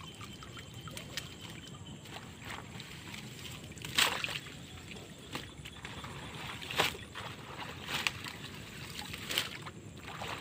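Shallow floodwater sloshing as a person wades and pulls waterlogged dry crop stalks out of a brush pile, with about five sudden sharp sounds, the loudest about four seconds in.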